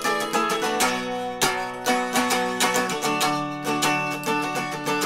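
Guitar strumming chords in a steady rhythm, changing chord about a second in and again about three seconds in; an instrumental stretch of a song with no singing.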